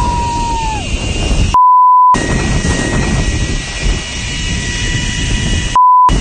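Two censor bleeps: a pure steady beep replaces the sound, once for about half a second and again briefly near the end. Around them runs a steady, loud, engine-like noise with a faint whine in it.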